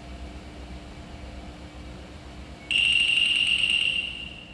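Recorded frog call played from an amphibian exhibit's speaker: a loud, steady high-pitched call starts about two-thirds of the way in and lasts about a second and a half, over a low room hum.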